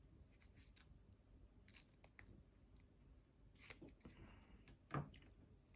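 Scissors making faint, small snips through a tiny piece of patterned paper, with one louder knock about five seconds in.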